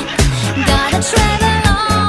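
Background music: a pop song with a singing voice over a steady dance beat and bass.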